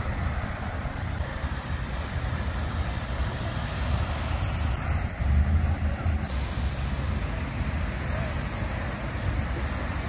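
Steady rushing of a water fountain's falling water, mixed with wind buffeting the microphone, which swells briefly about five seconds in.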